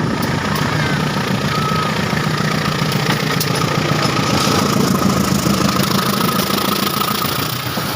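CC 203 diesel-electric locomotive's engine running hard as it passes, a loud, steady, heavy throb.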